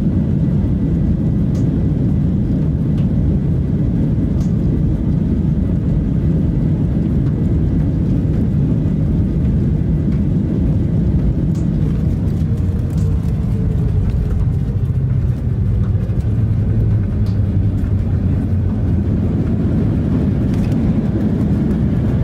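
Boeing 737 jet airliner during an aborted takeoff: a steady, loud, low roar of engines and runway rumble, with a faint falling whine about halfway through.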